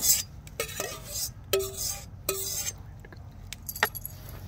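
A metal spoon knocking and scraping on a metal mixing bowl as chopped potatoes and pork are emptied into a cast iron Dutch oven; about four knocks in the first couple of seconds, each leaving the bowl ringing briefly. Then lighter clinks of the spoon against the cast iron as stirring begins.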